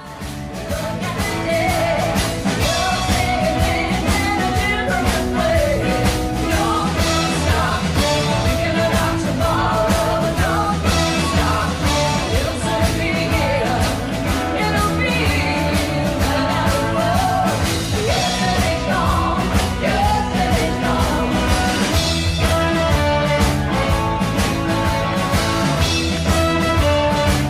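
Rock-and-roll song with a singer over a steady beat, playing loud and continuous after a brief drop right at the start.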